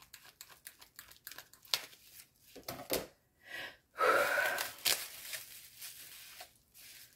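Packaging rustling and crinkling as items are unwrapped and handled, with quick light clicks and taps; a louder rustle, like something being torn or pulled open, comes about four seconds in.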